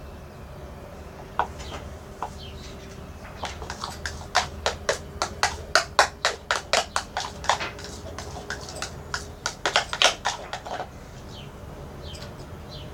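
A spoon stirring a slime mixture of glue and shaving foam in a bowl, clicking and knocking against the bowl at about three strokes a second for several seconds, with a couple of single knocks before.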